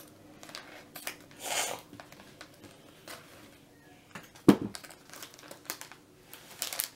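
Foil blind bag crinkling as it is snipped open with scissors and handled. About four and a half seconds in, one sharp knock, the scissors being set down on the table.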